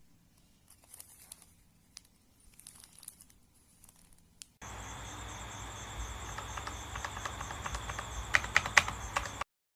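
Crinkling and clicking handling sounds, faint at first. About halfway a louder, hissy stretch with a steady high whine starts suddenly, and a quick run of sharp clicks comes near the end before it cuts off.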